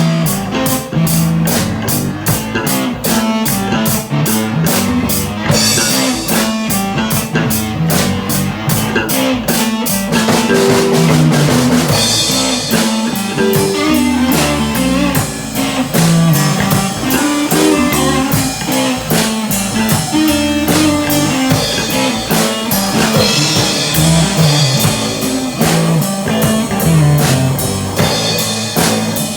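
Rock song played by a band, with drum kit and guitar keeping a steady beat; the drumming is especially sharp and regular through the first ten seconds or so.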